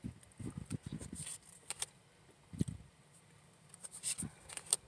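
Tarot cards being handled and flipped through: soft rustles and light thumps of the card stock, with a few sharp little clicks as cards snap against the deck.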